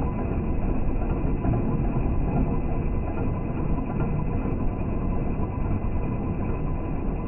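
Milling machine running with a steady low rumble and a faint, even whine.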